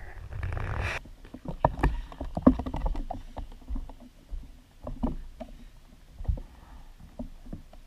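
A puppy's paws and claws tapping and thumping irregularly on a hardwood floor as it scampers about, after about a second of rustling handling noise.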